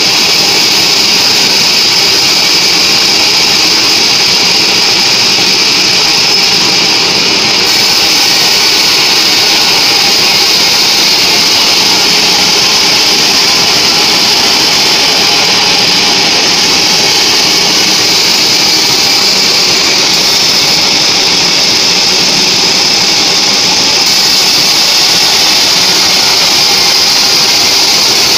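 Sawmill band saw running and ripping lengthwise through a squared mahogany beam: a loud, steady high-pitched noise of the blade in the wood over the machine's hum.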